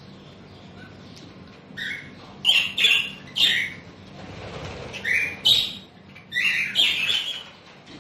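Budgerigars in an aviary giving a run of short, harsh squawking calls, loudest in quick clusters in the middle and near the end, over a faint steady hum.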